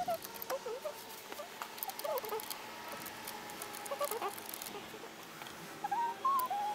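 Light metallic clicks and clinks of nuts and bus bars being unscrewed and lifted off the terminals of NiMH battery cell sticks by hand, with short squeaky chirps every second or two.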